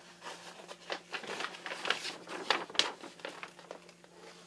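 Poster being unfolded and opened out by hand: irregular crinkling and rustling, loudest a little past the middle.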